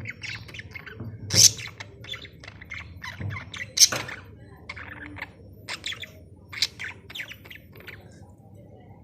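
Budgerigars chirping and chattering in quick runs of short calls, with two loud, sharp squawks, one about a second and a half in and one about four seconds in. The chirping thins out near the end.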